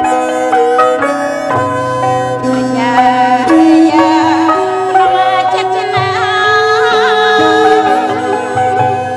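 Lakhon Bassac theatre music: a traditional Khmer ensemble playing held, stepping melody lines over a repeating low drum beat, with a woman singing in wavering held notes from about three and a half seconds in.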